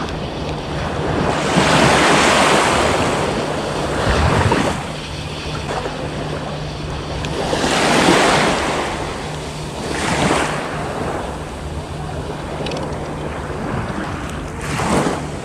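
Small waves breaking and washing up a pebble beach, each wash swelling and fading a few seconds apart, with a steady low hum beneath.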